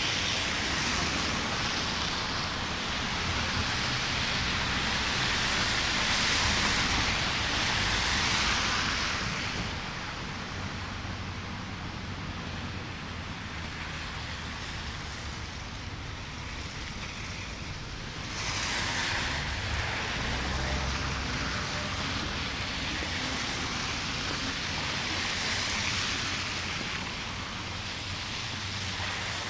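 Snowstorm street ambience: a steady hissing rush of wind and traffic on a slushy city street. It is louder for the first several seconds, drops back, then swells again a little past the middle.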